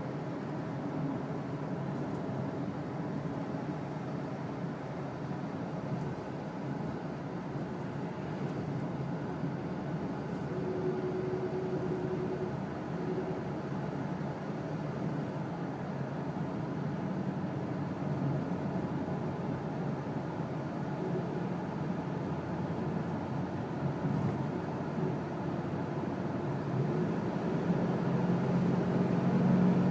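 2007 Dodge Dakota pickup running with a steady low engine and road hum. A faint steady tone comes in briefly about a third of the way through, and a louder low hum builds near the end.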